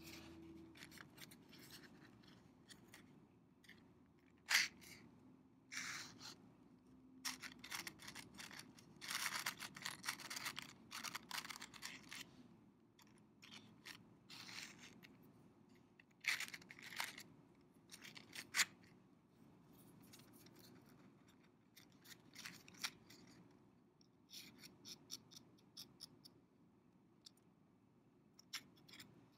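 Soft, irregular scraping and rustling from a cardboard matchbox and matches being handled, with a few sharp clicks.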